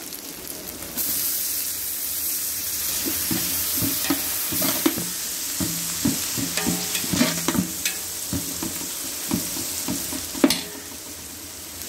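Onions and ginger-garlic paste frying in ghee in a large metal pot. The sizzling jumps up about a second in as fresh mint and coriander leaves go in. A metal slotted spoon then stirs them through, scraping and clicking against the pot, with one sharp knock near the end.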